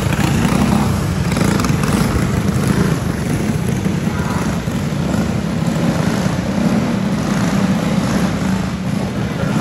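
Several racing kart engines running together in a steady drone, the karts slowing and bunching at caution pace under a yellow flag.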